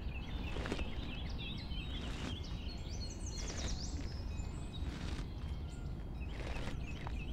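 Boots crunching through snow, five slow steps about a second and a half apart, with small birds chirping throughout and a quick bird trill a few seconds in, over a steady low rumble.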